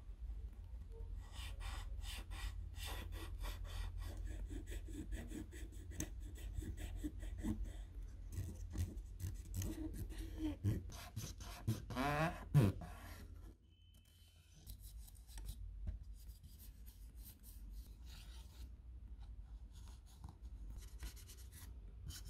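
Cotton swab and tissue rubbing and scratching over a plastic PS4 controller shell as it is cleaned, in many quick irregular strokes. A short squeak comes about twelve seconds in. After that the rubbing is quieter and sparser.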